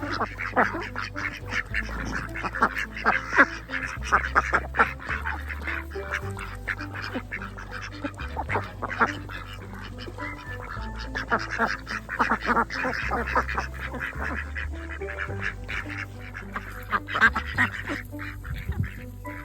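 Ducks quacking and chickens calling in short, repeated bursts, over background music with held low notes.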